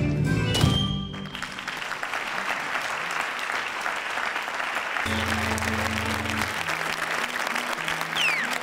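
Dance music stops on a final note about a second in. Then a theatre audience applauds steadily, with a short falling whistle from the crowd near the end.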